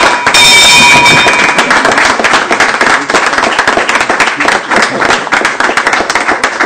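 A small group applauding and clapping, while the closing bell's steady ringing dies away within the first two seconds.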